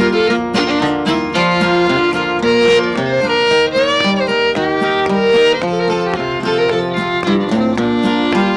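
Bluegrass instrumental break: a fiddle plays the melody over acoustic guitar, with quick-changing notes and a few sliding notes around the middle.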